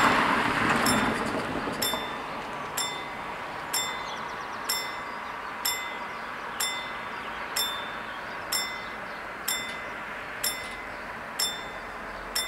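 WSSB level-crossing warning bell striking about once a second, each strike ringing on briefly, warning of an approaching train. A passing car's noise is loudest at the start and fades over the first two seconds.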